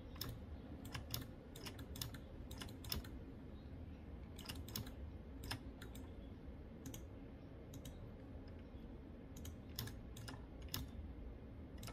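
Faint, irregular clicks of a computer keyboard and mouse being worked, coming singly and in small clusters, over a low steady hum.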